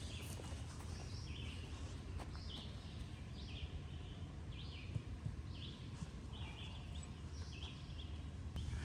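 A bird calling over and over in short chirps, alternating between two pitches about every two-thirds of a second, over a steady low rumble.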